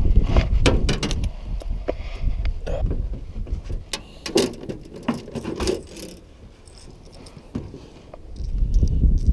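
Wind buffeting the microphone, with a scatter of light metallic clicks, rattles and knocks from fishing tackle being handled in an aluminium boat. The clicks thin out after about six seconds, and the wind comes back strongly near the end.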